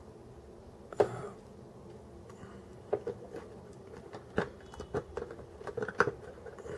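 Small plastic figure parts and display stand clicking and tapping as they are handled and fitted together: one sharp click about a second in, then a scattered run of light clicks and taps.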